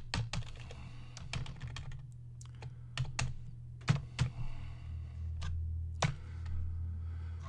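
Computer keyboard keystrokes and clicks, irregular and spaced out, as cells are selected and deleted in a spreadsheet. A steady low hum runs underneath, louder in the second half.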